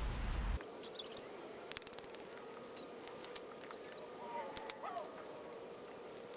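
Quiet evening outdoor ambience: a faint, steady, low trilling chorus of night creatures, with scattered small clicks and a short rising call about five seconds in. A louder, deeper sound cuts off about half a second in.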